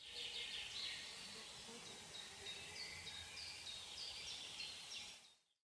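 Forest ambience: a steady hiss with short, high bird chirps repeating through it, fading in at the start and fading out near the end.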